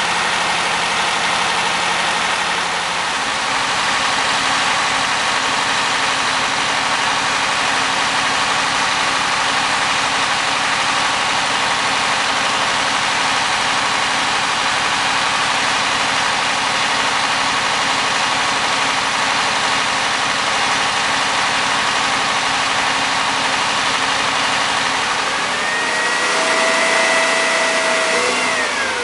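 MeMZ-969 air-cooled V4 engine of a LuAZ running steadily during break-in after a rebuild. Near the end the revs rise and a whine climbs with them, then falls away as the revs drop.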